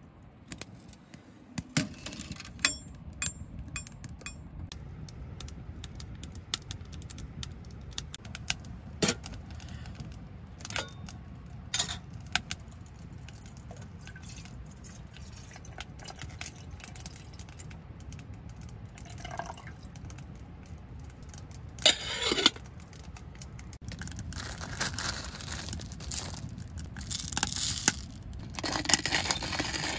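Wood fire crackling and popping in a small titanium tent stove, with water poured from a bottle into a kettle on the stove top. A brief clatter about two-thirds of the way through, and a denser rasping noise near the end.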